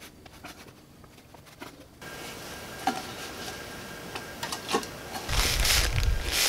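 Paper towel rubbing back and forth over the nylon fabric of an inflated sleeping pad, cleaning the spot with acetone before it is patched. The rubbing starts a little over five seconds in and is loud with a deep rumble, after a couple of small clicks.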